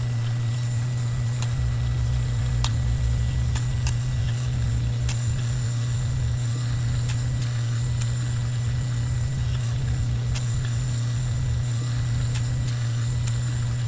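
Dremel rotary tool running steadily at constant speed with a buffing wheel, polishing wax into the steel of small needle-nose pliers; a steady low hum with a thin high whine, and a few faint ticks where the wheel touches the tool.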